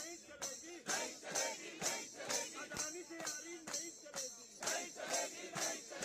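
Voices singing together to a steady beat of jingling percussion, about two beats a second.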